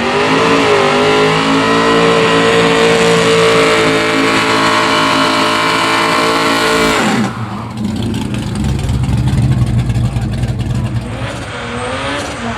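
Car engine revved up and held steady at high revs for about seven seconds, then let off sharply. It drops to a rough, crackling rumble, with a few smaller blips of the throttle near the end.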